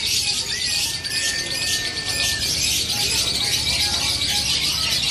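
Caged lovebirds chattering in the long, rapid, high-pitched unbroken trill of contest 'ngekek' song. A thin whistle-like note sounds briefly about a second in.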